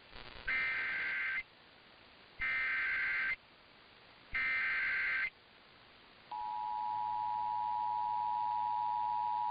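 Emergency Alert System activation for a severe thunderstorm warning: three short bursts of SAME digital header data, each about a second long, then about six seconds in the steady two-tone EAS attention signal starts and holds.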